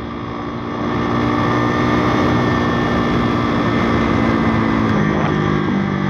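Single-cylinder YX 160cc four-stroke pit bike engine pulling hard on a top speed run. It gets louder over the first second or so, then holds steady, with wind rushing over the helmet-mounted microphone.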